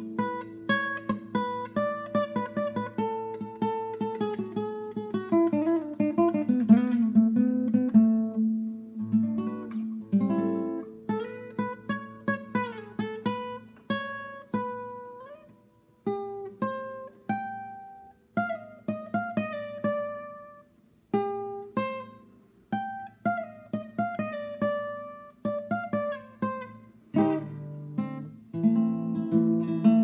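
Classical guitar played solo, fingerstyle: a slow piece of plucked chords and single notes, some of them sliding in pitch. Through the middle it thins to sparse single notes with short pauses between them, and fuller chords with a bass line come back near the end.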